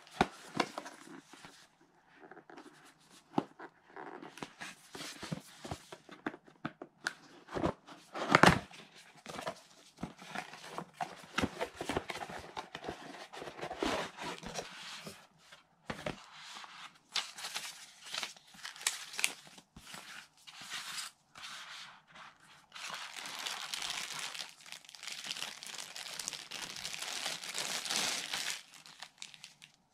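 Cardboard retail packaging handled and opened by hand: scattered rustles, scrapes and taps, with one sharp knock about eight seconds in. Near the end comes a longer spell of crinkling from a clear plastic bag holding the power adapter and cable.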